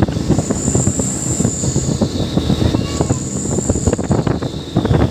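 Truck on the move over a rough road: a low rumble under dense, irregular rattling and knocking. A thin high whine sounds twice, each time for a second or more.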